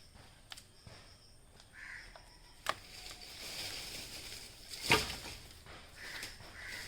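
Crows cawing a few times, with sharp knocks in between, the loudest a single knock about five seconds in.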